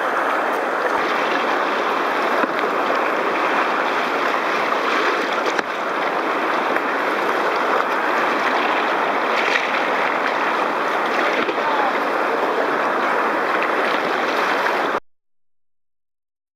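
Steady rush of whitewater rapids close to a kayak-mounted camera, cutting off suddenly near the end into silence.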